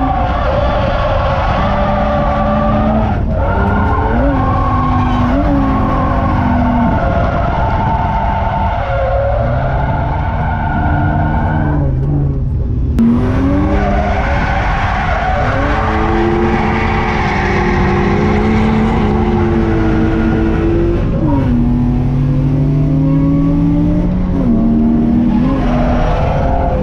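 BMW E30's M50B25 non-VANOS straight-six engine being driven hard in a drift, revs rising and falling over and over, with the tyres skidding and squealing, heard from on board. The revs drop away briefly about halfway through before climbing again.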